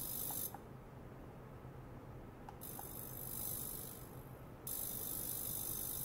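A high, thin hiss from an ultrasonic probe in a stainless steel bowl, driven by a function generator, switching on and off as the oscillation is controlled. It cuts out about half a second in, returns and swells around three seconds in, fades again, then comes back fully near five seconds in, over a steady low hum and a few faint ticks.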